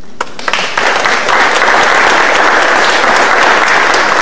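Audience applauding: a few scattered claps at first, filling out within a second into steady applause.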